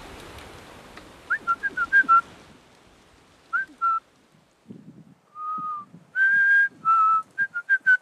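A man whistling a string of short, clear notes up into a tree, with a few longer held notes in the middle and quick ones near the end; a hunter's whistle that locals believe keeps the iguana from fleeing. Soft low knocks come in between the whistles.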